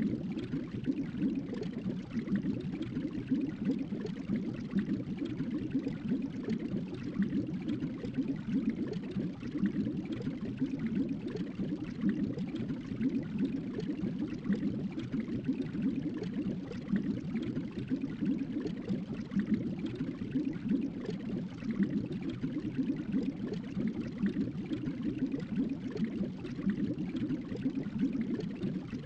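Steady, unbroken rush of running water with a light trickling texture, part of a tropical island nature ambience.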